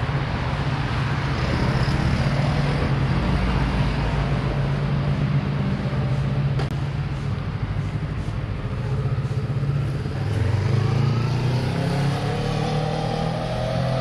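Street traffic: motor vehicles running along the road with a steady low engine hum, and one engine accelerating, its pitch rising, over the last few seconds.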